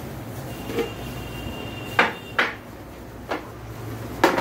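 Four sharp knocks and clicks of containers and utensils being handled on a stainless-steel ice cream counter, spread over the second half, over a steady low hum of the counter's cold-plate machine.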